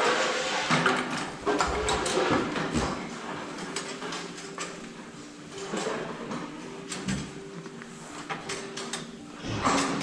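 Goats feeding at metal headlock barriers in a barn, the steel rails and yokes clattering and knocking as the animals push and pull their heads, with some goat calls.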